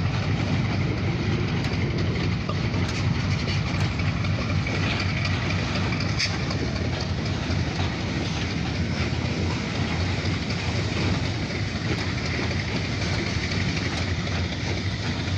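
Grain hopper freight train running, a steady diesel locomotive rumble with a few faint clicks from the rails.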